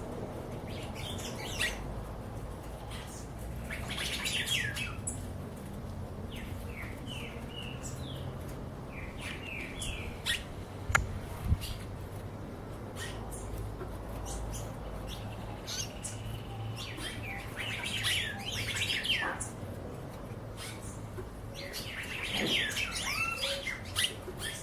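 Wild songbirds singing and calling in several bursts of quick chirps and short sliding notes, over a steady low rumble, with two sharp clicks about halfway through.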